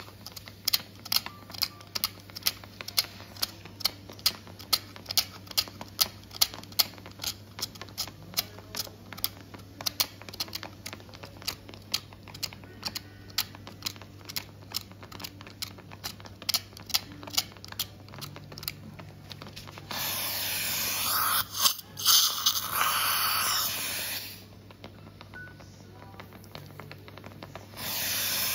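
Safescraper bone scraper dragged repeatedly over jawbone to harvest bone chips, a rapid series of short scraping strokes at about two to three a second. Near the end the strokes stop and a loud steady hiss takes over for a few seconds, then returns just before the end.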